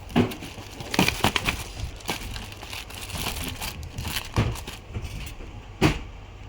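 Packaging being handled, with crinkling and crushing noise and about five sharp knocks.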